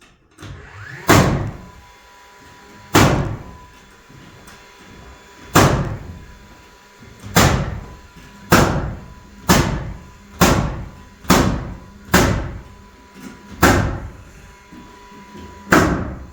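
Hammer blows on wood, about twelve heavy strikes, each ringing briefly. They come slowly at first, then settle to about one a second.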